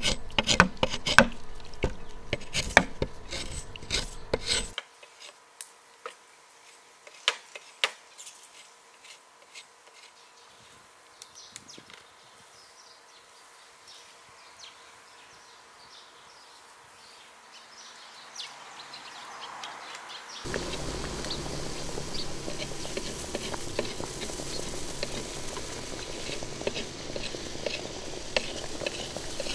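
Kitchen utensils clattering and knocking against pots and dishes, quick and dense for the first few seconds, then only scattered clinks. About two-thirds of the way in a steady hiss starts suddenly.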